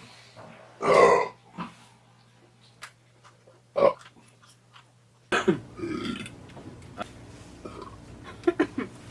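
A person belching: one long, loud burp about a second in and a short burp near four seconds, then after a cut a few quieter burp sounds.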